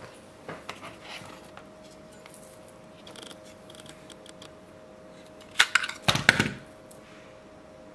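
Small fixed-blade knife handled and drawn from its hard plastic sheath: soft taps and scrapes, then a quick run of sharp clicks and scraping about five and a half seconds in as the blade comes free. A faint steady hum underneath.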